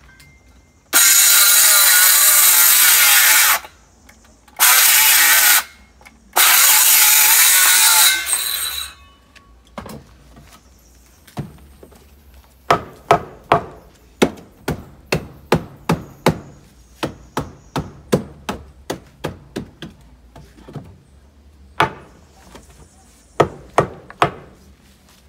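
A power saw cutting through wooden boards in three bursts, the first and last a couple of seconds each, the middle one shorter. Then a hammer drives nails into the timber, about two blows a second, with a short pause before a last run of strikes.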